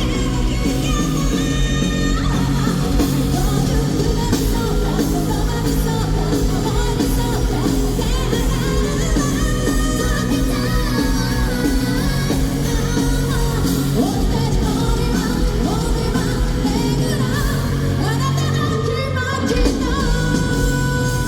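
Live J-rock band playing loudly in an arena: a female lead vocal sings over electric guitars, bass and drums, recorded from the audience.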